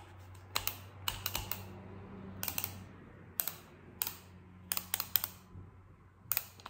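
Clockwork mechanism of a small wind-up toy chick running after being wound, giving sharp, light clicks in short clusters about once a second.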